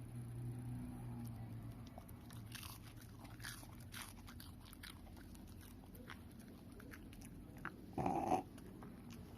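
Shiba Inu chewing bread, with scattered crunchy bites and mouth clicks, then a single short burp about 8 seconds in.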